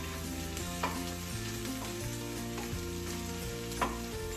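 Seasoned chickpeas sizzling steadily as they roast, with two sharp clicks, one about a second in and one near the end. Background music with held notes that change every second or so plays underneath.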